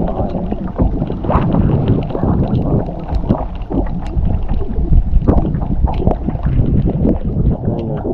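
Wind buffeting the microphone aboard a kayak in a snowstorm: a loud, uneven low rumble, with water slapping and many small knocks against the hull.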